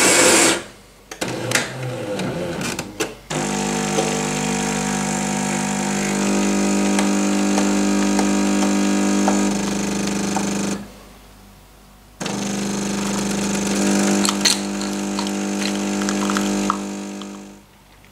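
Jura bean-to-cup coffee machine making a coffee: a few clicks, then its pump hums steadily for about seven seconds, pauses for over a second, and hums again for about five seconds before cutting off.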